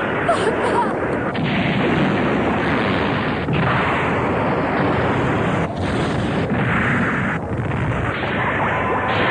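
Animated-film sound effect of bombs exploding one after another: a continuous, loud din of blasts with no pause, its texture shifting every second or two as new explosions come in.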